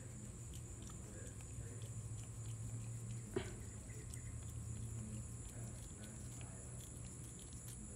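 A cat chewing and biting into a slice of watermelon: soft, wet mouth noises, with one sharper click about three and a half seconds in, over a steady low hum.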